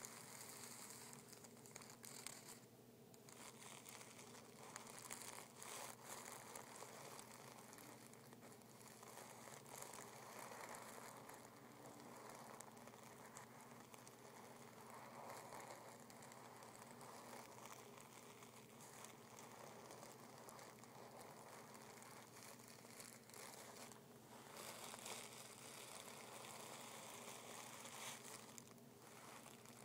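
Fingertips rubbing and scratching over crumpled tissue paper, a faint, continuous crinkling with many small crackles.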